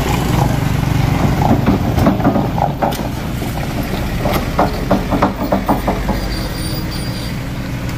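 Small loaded pickup truck's engine running steadily on a steep climb, with a run of quick rattling clatters about halfway through.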